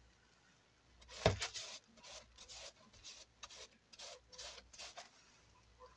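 Paintbrush scrubbing diluted white glue into a pinned crocheted doily in short rubbing strokes, about two a second, to stiffen the thread. A single knock about a second in.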